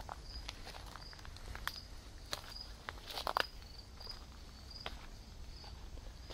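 A cricket chirping steadily, short high chirps about three a second, over footsteps crackling on the woodland floor; the loudest crackles come about three seconds in. A low steady rumble sits underneath.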